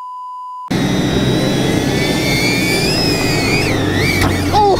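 A steady test-card beep cuts off under a second in. Then a Toyota Tacoma pickup climbs a dirt hill: loud engine noise with a high whine that rises and falls.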